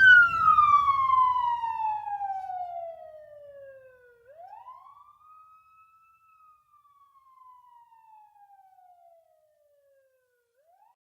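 Police siren sound effect played through a Doppler shift: two long wails, each rising quickly and then sliding slowly down in pitch, as a siren does passing by. The sound travels from the left channel to the right, fading as it goes, with a low rumble under the first wail.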